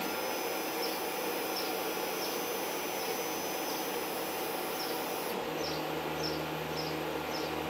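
Elegoo OrangeStorm Giga 3D printer running its automatic bed-levelling routine: short chirps from its stepper motors repeat about every two-thirds of a second as the print head moves between probe points, over a steady hiss. A low hum comes in about five seconds in.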